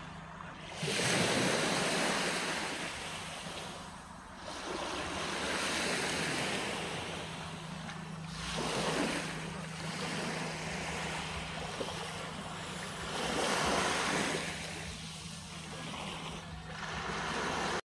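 Small sea waves breaking and washing up onto a beach, the surf swelling and easing about every four seconds. The sound cuts off suddenly just before the end.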